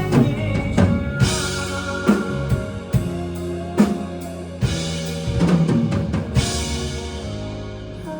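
Live rock band playing an instrumental passage: a drum kit with kick, snare and cymbal crashes over sustained pitched chords. The drumming thins out and the music eases off near the end.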